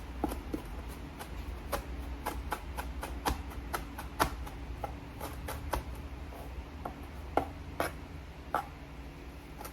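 Knife chopping fresh parsley on a cutting board: irregular taps, a few a second, over a steady low hum.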